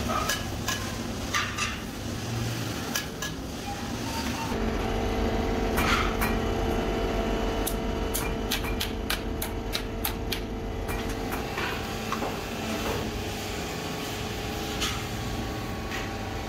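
Casting-shop machinery: metal clanks and knocks. From about four seconds in, a steady machine hum runs under a quick run of sharp metallic clicks and taps.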